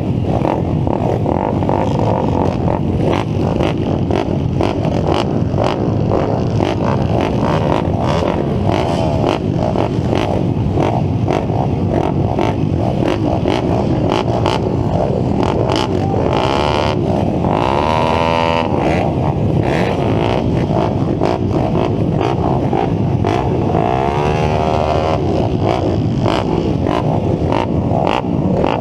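A grid of pit bike engines, the rider's YCF SP3 among them, running together while waiting for the start, with throttles being blipped. Revs rise clearly about two-thirds of the way through and again a few seconds later.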